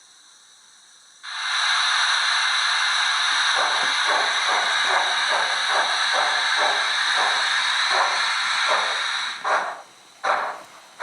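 Steam-locomotive sound from the LokSound decoder in a Hornby LMS 8F model, played through its tender speaker. About a second in, a loud steady steam hiss starts, with a rhythm of chuffs beneath it at about three a second. Near the end the hiss stops and separate exhaust chuffs are left.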